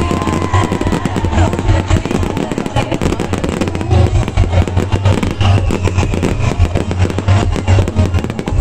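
Aerial fireworks bursting overhead: many sharp bangs and crackles in quick succession.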